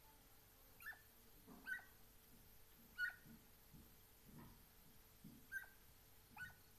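Distant Segugio Italiano hounds giving short, high yelps, five in all, each dropping in pitch, as they work a scent trail with noses down.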